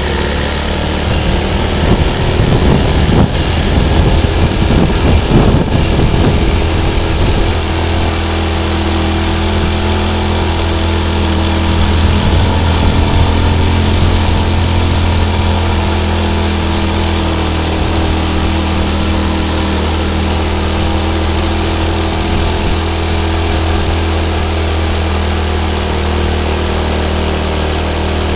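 Small motorcycle engine running steadily in a low gear while climbing a steep road, with rushing wind noise on the microphone; it is louder and more uneven from about two to seven seconds in.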